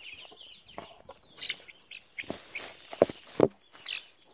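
Five-week-old chicks peeping in short, high, falling chirps, then rustling and handling noise with two sharp knocks, about three seconds in and half a second later, which are the loudest sounds.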